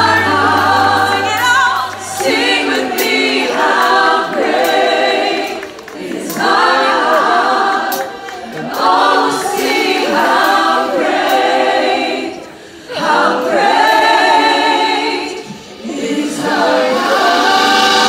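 A group of worship singers on microphones singing a gospel song together, in phrases of two to four seconds with brief pauses between them.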